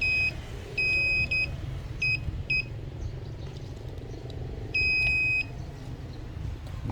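A series of high electronic beeps, some short and a few held longer, coming at uneven intervals: a cluster in the first two and a half seconds and one longer beep near the middle, over a steady low rumble.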